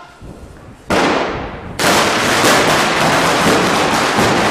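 A string of firecrackers (a traca) going off on the street. A first loud burst comes about a second in, and just under two seconds in a dense, rapid rattle of bangs begins that keeps on going.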